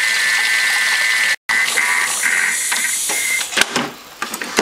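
Thermomix food processor motor running with a steady high whine as it beats eggs, oil and brandy together. The whine stops about three and a half seconds in, and a few clicks and knocks follow as the lid is handled.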